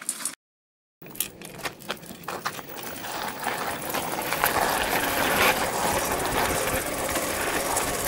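Homemade monowheel's electric hub motor whirring as the wheel rolls along wet tarmac, with a few sharp clicks early on; the whir builds about three seconds in and then holds steady.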